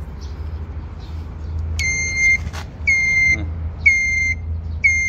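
Turn-signal beeper of an electric cargo tricycle, switched on with a click about two seconds in, then giving a short high beep about once a second as the indicator flashes, over a steady low hum.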